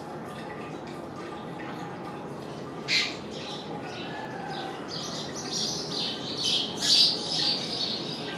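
Jungle babbler giving harsh, squawking calls: one sharp note about three seconds in, then a run of rasping calls through the last few seconds, loudest near the end.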